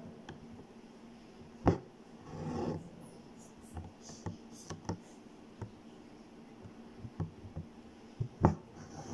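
Light handling noises on a stretched embroidery fabric: soft scratches and rustles, with two sharp knocks about a second and a half in and near the end.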